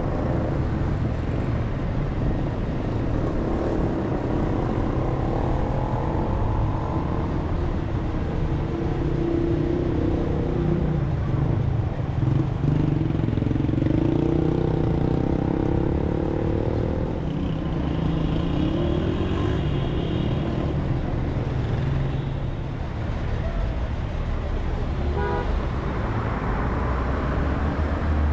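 City street traffic heard from a moving car: steady engine and road rumble with vehicles and motorcycles around, and brief car-horn toots in the latter part.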